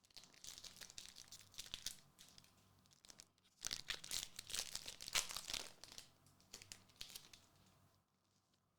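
Trading card booster pack wrapper crinkling and being torn open, in irregular rustling bursts with a short pause a little over three seconds in and the loudest tearing a second or two later.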